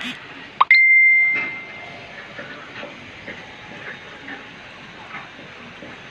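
A single high, bell-like ding a little over half a second in, one clear tone that rings out and fades over about a second. A steady background hiss runs underneath.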